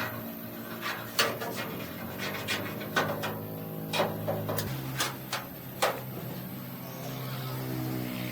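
A series of sharp knocks and clinks, about a dozen spread irregularly, over a steady humming tone that drops to a lower pitch a little past halfway.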